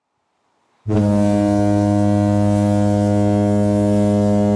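A loud, low, steady horn-like drone cuts in abruptly about a second in, after dead silence, and holds one unchanging pitch.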